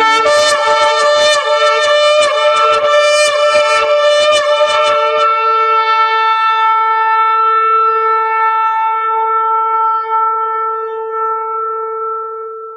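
Shofar blast: a rapid stuttering call for about five seconds, then one long steady note held until it fades out near the end.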